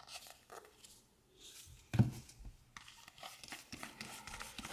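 Trading cards being handled and slid through the fingers: faint slides, taps and rustles, with one louder tap about two seconds in.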